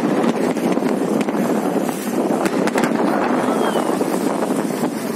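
Jet skis running on the river with wind buffeting the microphone: a steady rushing noise, with a few short cracks scattered through it.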